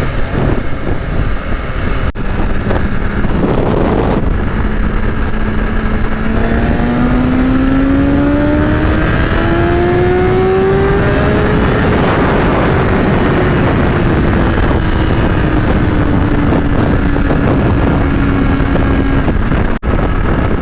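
Riding motorcycle heard from the rider, with heavy wind rush over the helmet throughout. The BMW S1000RR's inline-four engine rises steadily in pitch for about six seconds under acceleration, then slowly falls as it eases off.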